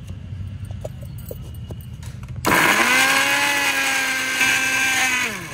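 Electric mixer grinder switching on about halfway in and running steadily for about three seconds, grinding guava pieces with mint leaves into chutney. It is then switched off, its pitch falling as it winds down near the end. A few light clicks come before it starts.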